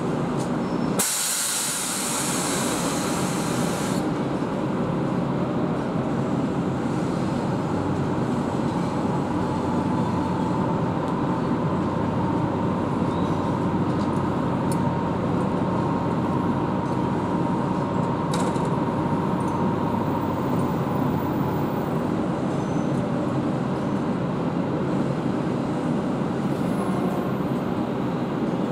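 ChS7 electric locomotive moving slowly at low speed, with a loud steady running hum. About a second in, a burst of hissing compressed air lasts some three seconds. A faint whine rises and fades in the middle.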